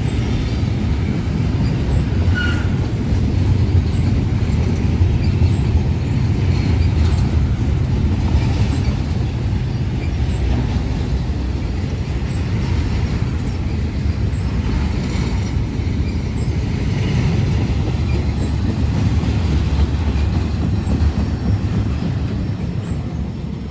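Union Pacific intermodal freight train's stack cars rolling past, a steady heavy rumble of wheels on rail with a brief faint wheel squeal about two and a half seconds in. The rumble eases slightly near the end.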